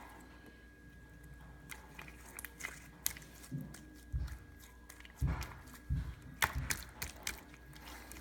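Homemade borax-and-glue slime squished and kneaded in the hands: irregular wet clicks and pops, with a few soft thumps from about four seconds in.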